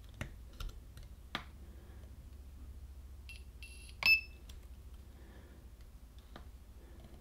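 Small battery spot welder firing on nickel strip over 18650 cells: short high beeps from the welder board and one sharp snap about four seconds in, with a few small clicks as the probes touch the metal. The welds may not be getting all the way through the thick strip.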